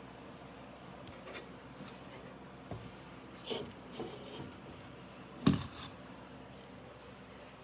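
Handling of 3D printer filament: a few faint clicks and rustles, then one sharp snap about five and a half seconds in.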